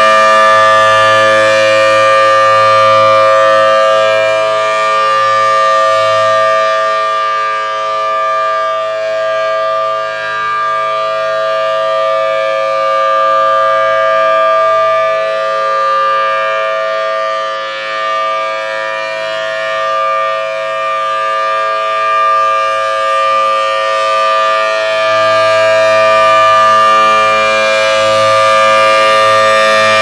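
Federal Thunderbolt 1000T civil defense siren sounding a steady tone for a tornado drill, its rotating horn swelling loud as it faces toward the listener, fading as it turns away through the middle, and swelling again near the end.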